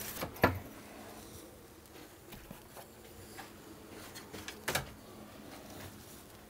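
Knocking and clattering of bed panels being handled and lifted out of a van's bed frame: a thump just after the start, a few faint knocks, and a sharper clatter about three-quarters of the way through.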